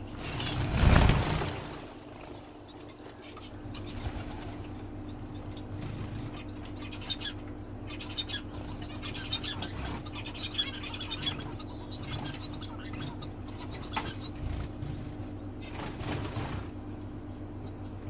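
A brief flurry of small birds' wings about a second in, followed by scattered short, high chirps of aviary finches, over a steady low hum.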